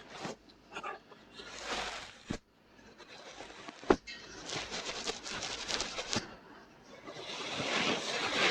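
Ear-cleaning ASMR scratching right at the microphone's ear: irregular rubbing and scratching strokes, a sharp tap about four seconds in, and denser, louder scratching near the end.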